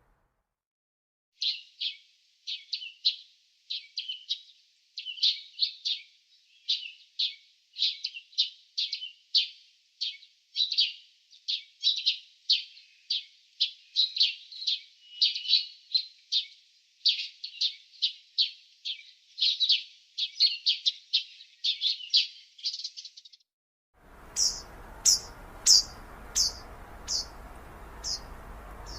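Birds chirping: a long rapid run of short, sharp chirps in clusters, with nothing behind them. About four-fifths of the way through it cuts to another bird giving a slower series of higher, downward-sliding chirps, about two a second, over a steady outdoor hiss.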